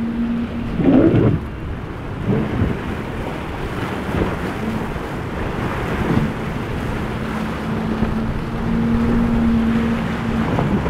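Outboard engines of a Contender center-console boat running at speed with a steady drone, while the hull crashes through waves with several loud rushes of spray, over wind buffeting the microphone.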